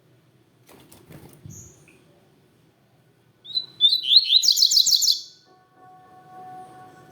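A double-collared seedeater (coleiro) sings one loud, fast phrase of rapidly repeated high notes lasting about two seconds, starting about halfway through. There is a single short high chirp near the start and a few soft knocks. A faint steady tone comes in near the end.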